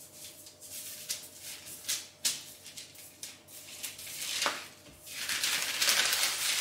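Baking paper crinkling and rustling under gloved hands as dough scraps are peeled off a cut-out cake layer, with a few light clicks. The rustle gets louder near the end as the paper sheet is gripped and slid along the counter.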